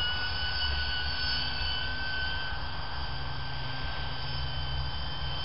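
Radio-controlled 500-class helicopter with a six-blade fenestron tail rotor flying overhead: a steady, high-pitched whine made of several held tones over a low rumble.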